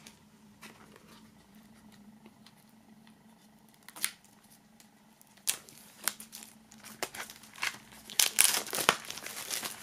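Plastic shrink-wrap foil being peeled off a CD digipak by hand. A few faint ticks come first, then crinkling in bursts that grow busier over the last few seconds.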